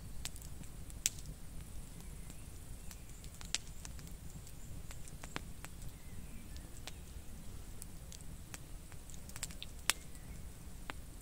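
Wood campfire crackling: sparse, irregular sharp pops and snaps over a low steady rumble.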